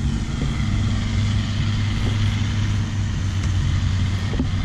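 Vehicle engine running steadily, an even low hum that holds the same pitch and level throughout.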